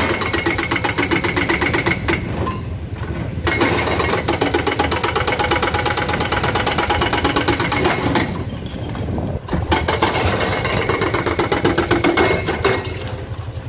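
Komatsu PC210 hydraulic excavator working, its diesel engine clattering steadily under load. It eases off briefly twice, about two seconds in and again around eight seconds, then picks up sharply.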